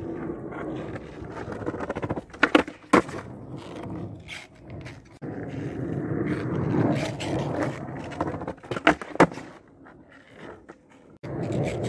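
Skateboard wheels rolling and grinding over rough asphalt, broken twice by a pair of sharp clacks as the board strikes the ramp during stalls, about two and a half seconds in and again about nine seconds in.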